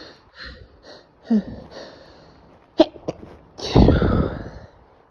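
A man's stifled sneezes: quick breathy inhales first, then two short, sharp, held-in sneezes near three seconds in and a longer, louder sneeze just after.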